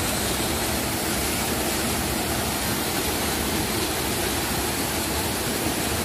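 Waterfall cascading over boulders into a rock pool: a steady rush of water.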